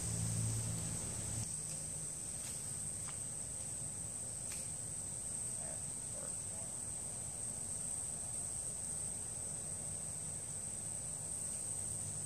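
Steady high-pitched insect chorus droning without a break, with a low hum that stops about a second and a half in and a few faint ticks in the first few seconds.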